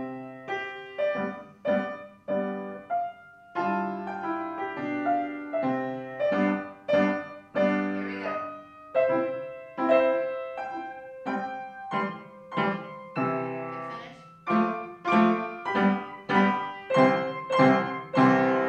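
Upright piano played four hands as a duet: a steady run of struck notes and chords, closing near the end on a loud chord that is left to ring.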